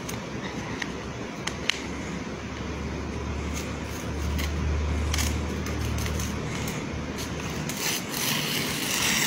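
Paper rustling and small crinkles as a small child fingers and pulls at the pages of a notepad, ending in a louder burst of rustling near the end. A low hum swells and fades in the middle.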